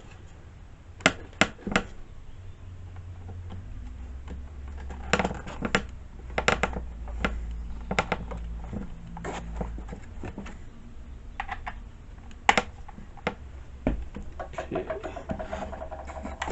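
Irregular sharp clicks and taps of small chainsaw parts and hand tools being handled and fitted during an air filter install. There are a few single knocks and short clattering clusters over a low steady hum.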